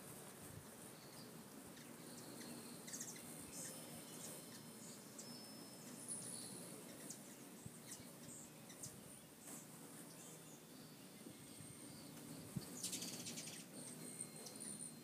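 Faint high-pitched chirps and twitters of hummingbirds around the deck feeders, with a short buzzy trill near the end.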